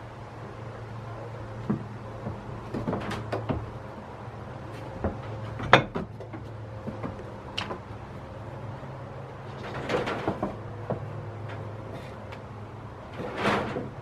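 Goats' hooves knocking and scraping on wooden boards and ledges: scattered irregular knocks, the sharpest about six seconds in, with a cluster near the end.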